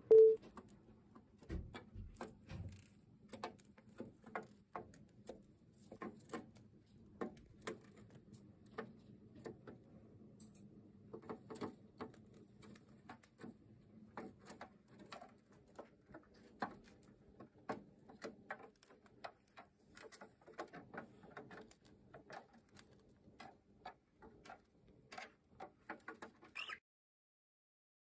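Light, irregular tapping and clicking of a cockatiel moving about on a plastic toy dollhouse, several taps a second, over a faint steady hum. A brief loud tone sounds at the very start, and everything stops near the end.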